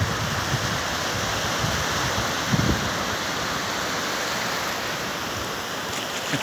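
Small waves of surf washing in and out over the shallows of a sandy beach, a steady rush, with a brief gust of wind on the microphone about two and a half seconds in.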